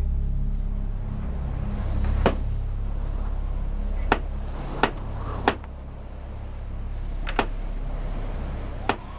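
A steady low rumble with six sharp knocks or clicks scattered through it, spaced a second or two apart.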